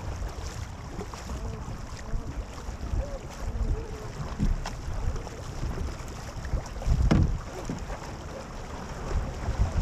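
Paddles stroking through the water and water washing along the hull of a multi-person canoe under way, with wind rumbling on the microphone. A couple of sharp knocks stand out, the loudest about seven seconds in.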